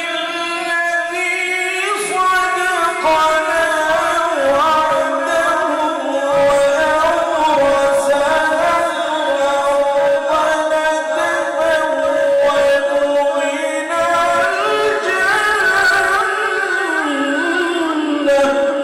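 A male qari's unaccompanied melodic Quran recitation, drawing out long ornamented held notes that bend and waver in pitch.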